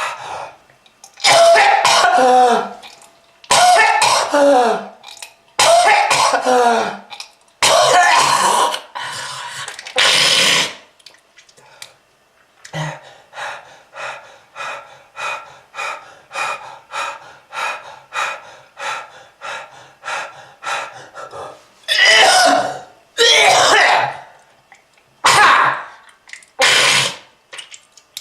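A smoker coughing hard in long hacking fits with throat clearing, the pitch of each fit falling away. In the middle comes a run of short, quick bursts about two a second, then heavy coughing starts again near the end. Presented as the cough of smoking-related lung disease.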